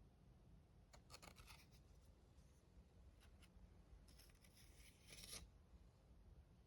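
Near silence: room tone with faint, brief rustling scrapes about a second in and again around four to five seconds in.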